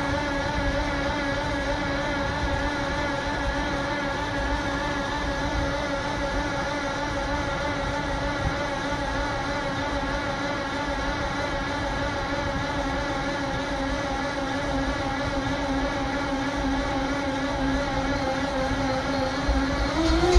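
Class 57 diesel locomotive with its EMD 645 V12 two-stroke engine during a cold start: a steady, slightly wavering mechanical whine, then near the end it climbs sharply in pitch and a heavy low rumble comes in as the engine fires.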